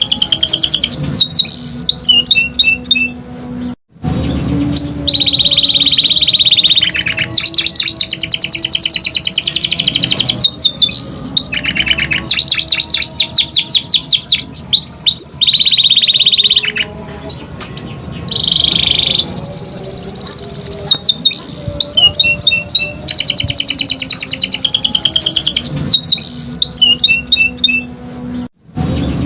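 Domestic canary singing a loud, continuous song of fast trills and rolls, rapid repeated chirps and short rising whistles. The song breaks off for a split second twice.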